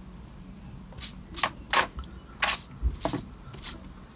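A small sponge dabbing paint through a mylar stencil onto the embossed brick wall of a model house: about six short dabs, irregularly spaced.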